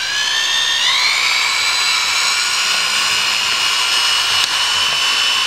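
Handheld electric drill spinning up to speed in the first second, then running at a steady high whine as it drills a pilot hole through a license plate into a UTV's rear body panel.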